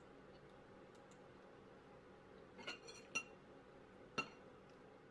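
Metal fork clinking against a plate while cutting food. There is a short cluster of light clinks a little past halfway, then two sharper ringing clinks about a second apart, over a faint steady room hum.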